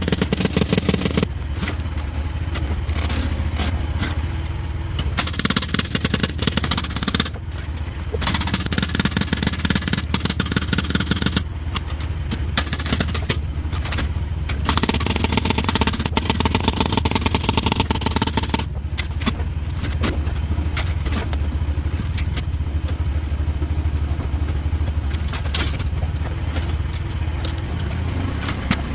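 Mini excavator's engine running steadily while its hydraulic rock breaker hammers on a shelf of rock in rapid blows, in several bursts that stop and start, trying to split it.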